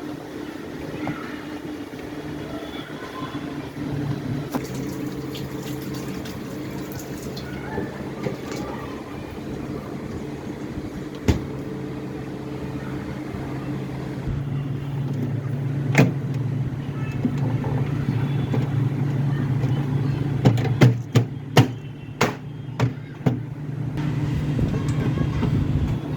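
Refrigerator compressor running with a steady hum that grows stronger about halfway through, while the refrigerant gas is charged. Sharp metallic clicks and taps, several in quick succession near the end.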